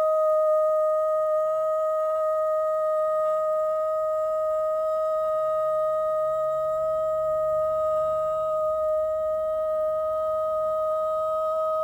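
One steady, pure musical tone held without a break and without wavering, with faint overtones above it, as used for sound healing.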